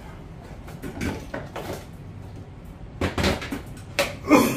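Knocks and clatter of a fishing reel and its packaging being handled on a counter, in several separate bursts, the loudest near the end.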